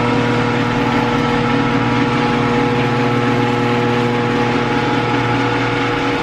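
Garage door opener motor running as the door travels open: a steady hum over mechanical noise that cuts off abruptly at the end as the door stops.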